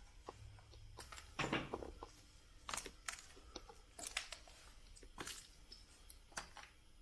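Footsteps crunching over debris on the floor of a derelict building: irregular steps about one a second, the heaviest about a second and a half in.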